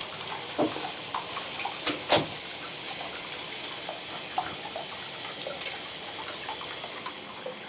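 Bathtub tap running steadily into a tub, with a few small splashes and knocks as a wet puppy is held and washed in the shallow water.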